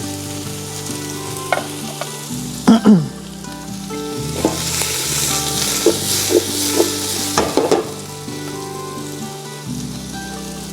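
Ginger and onion sizzling in hot oil in a frying pan while being stirred, the utensil clicking and scraping against the pan several times. The sizzle grows louder around the middle.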